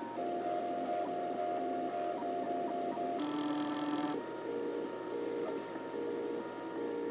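MakerBot dual-extruder 3D printer's stepper motors whining in steady pitched tones that change with each move as it prints a two-color part. About three seconds in, a different, higher set of tones for about a second as the platform moves the part from one nozzle to the other, then short alternating tones of back-and-forth moves.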